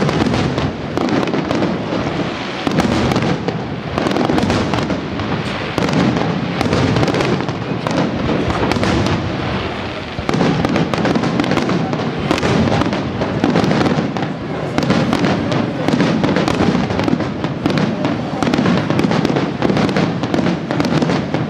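Fireworks bursting in a dense, continuous barrage of bangs and crackles, with a heavy rumble beneath and only brief lulls.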